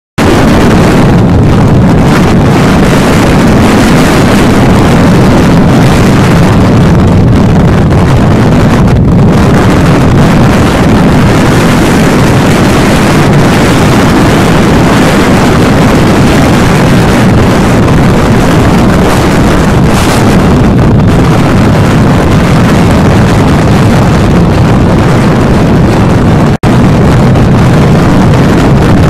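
Wind buffeting the microphone on a motorcycle riding at road speed, a loud, steady rush with the bike's engine and road noise underneath. The sound drops out for an instant about three seconds before the end.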